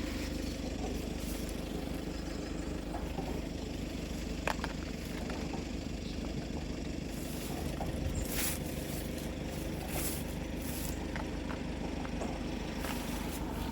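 An engine idling steadily, a low even hum, with a few faint clicks.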